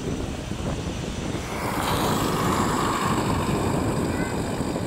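Twin-engine jet airliner's engines running as it turns on the runway and taxis, the jet noise growing about two seconds in as the engines come round toward the microphone. A gusty rumble of wind on the microphone runs underneath.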